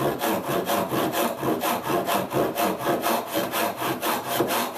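Hand ripsaw cutting along the grain of a pine board, starting a cut down its thickness with short, quick back-and-forth strokes at an even rhythm, teeth rasping through the wood.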